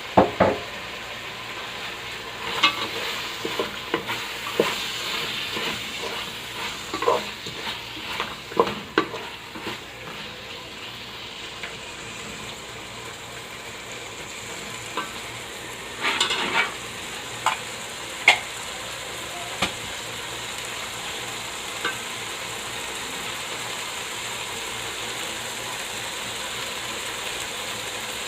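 Onion masala with green chillies and cashews sizzling in a frying pan while a spoon stirs it, knocking and scraping on the pan now and then, most often in the first ten seconds; the last few seconds are steady sizzling.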